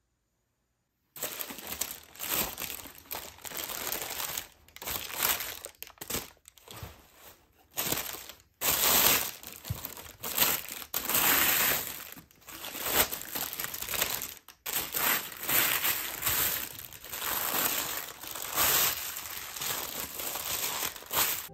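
A sheet of thin crumpled paper being handled and crinkled by hand, in irregular rustling bursts starting about a second in.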